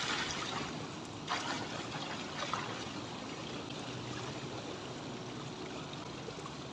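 Swimming-pool water lapping and trickling close by, with a short splash about a second and a half in as a person goes into the pool.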